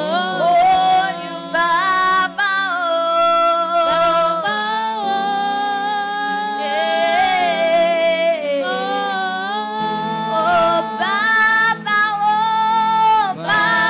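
A man and two women singing a slow worship song into microphones, in long held notes that slide between pitches.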